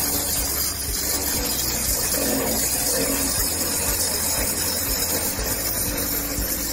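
Blade-grinding attachment of a bandsaw blade butt welder: its electric motor spinning a grinding wheel against the welded joint of a bi-metal bandsaw blade, grinding the weld burr flush. A loud, steady rushing hiss.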